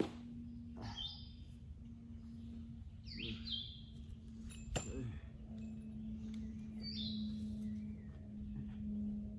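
A small bird chirping three times over a steady low hum, with two sharp clicks, one at the start and one about five seconds in.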